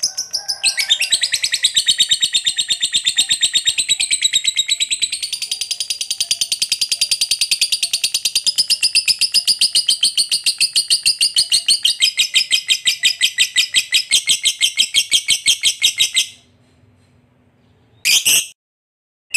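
Lovebird's 'ngekek panjang' song: one long, unbroken run of rapid, high chattering notes that stops abruptly about 16 seconds in. Near the end come one or two short chirps.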